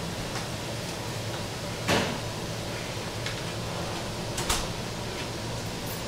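Steady hum of kitchen ventilation, with two brief knocks, the louder about two seconds in and another about four and a half seconds in.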